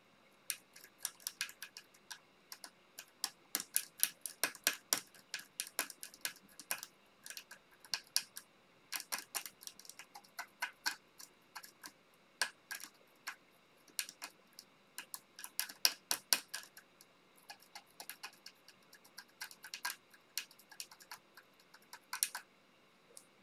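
A blade scraping the solder mask off a cracked graphics-card circuit board to expose the copper beneath. It makes runs of small, sharp scratchy clicks, several a second, in irregular bursts with short pauses between strokes.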